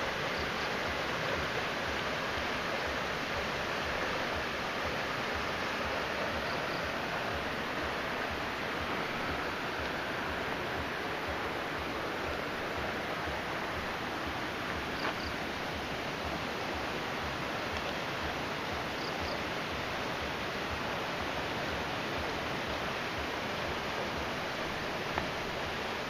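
River water rushing over rocks and small falls in a canyon: a steady, even rush, with a few faint, brief high chirps over it.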